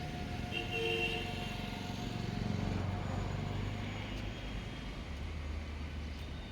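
Passenger train arriving: a steady low rumble, with a brief higher tone about half a second in.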